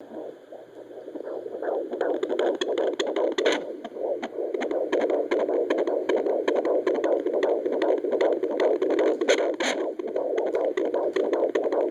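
Handheld fetal doppler's speaker hissing and whooshing, with scratchy crackles as the probe is moved over the belly searching for the fetal heartbeat. The sound fades up over the first two seconds.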